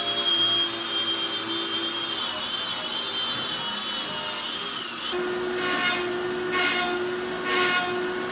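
Small handheld power tool working on the cracked grille: a high steady whine that wavers slightly under load. About five seconds in it gives way to a lower steady hum with a rasping stroke repeating about once a second.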